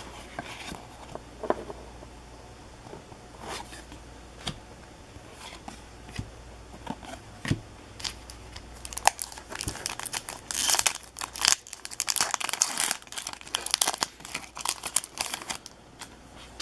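Hockey trading cards being handled: cards flipped, slid against each other and squared into a stack, with light clicks and rustling. The rustling gets denser and louder about nine seconds in and runs for several seconds before easing off.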